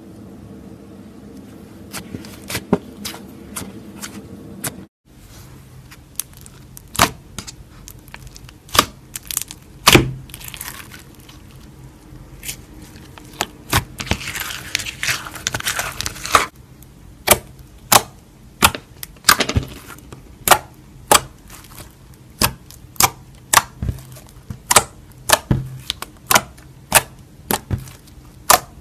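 Slime being pressed, poked and stretched by hand, giving a string of sharp popping clicks, often one or two a second, with a short stretch of denser crackling about halfway through.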